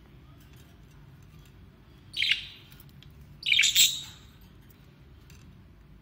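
Budgerigar calls: a short, loud burst of scratchy chirping about two seconds in, and a longer one about a second later, over faint background chirps.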